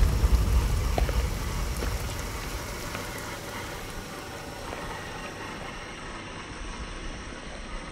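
Traxxas TRX-4 RC crawler driving over a gravel dirt track: a steady noisy rumble of motor, drivetrain and tyres with a few small ticks of stones. A heavier low rumble fades away over the first three seconds.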